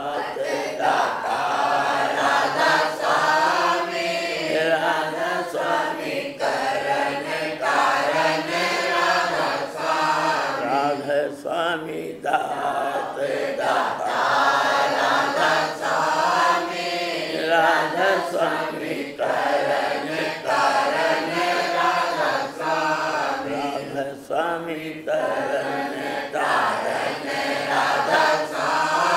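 A group of voices chanting a Radhasoami devotional shabad together, a repeated 'Radhasoami' refrain sung in long, wavering held notes.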